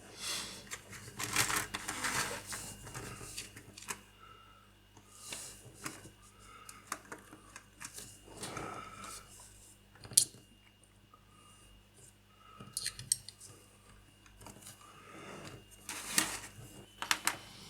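Small plastic model-kit parts being handled on a work surface: intermittent scraping and rustling with light clicks, and one sharp tap about ten seconds in.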